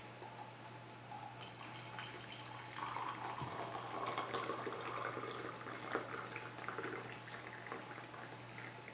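Hot water being poured into a ceramic mug. The pour starts about a second and a half in, is fullest in the middle with small splashy clicks, and tapers off near the end.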